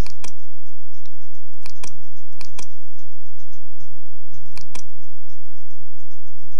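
Computer mouse clicking in pairs a fraction of a second apart, four times, with fainter ticks between, over a steady low electrical hum.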